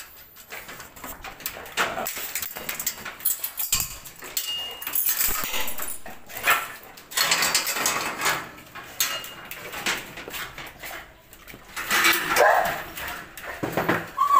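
Belgian Malinois whining in its kennel, amid scuffing and knocking noises; the whines are clearest near the end.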